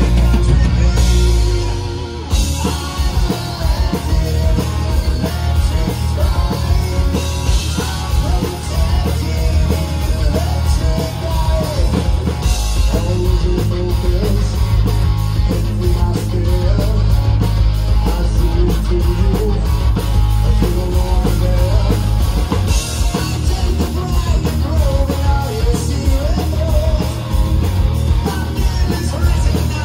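Rock band playing: electric guitar, bass and a drum kit keeping a steady beat, with a wandering melody line over the top.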